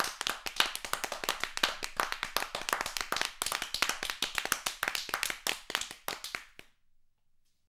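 A small group of people clapping their hands, claps overlapping unevenly, which stops about two-thirds of the way through.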